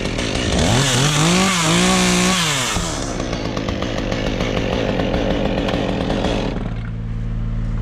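Gas chainsaw revving up and running at high speed over a steady low engine hum. The saw noise drops away about six and a half seconds in, leaving the hum.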